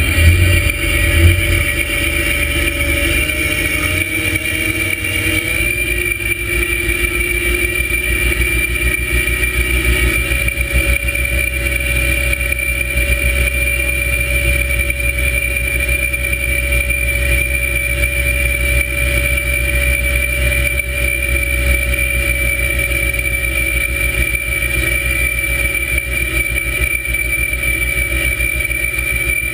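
Drift gillnet boat's engine running steadily under way, with a steady high whine over a low rumble, while the net is set off the stern. Two thumps in the first second or two.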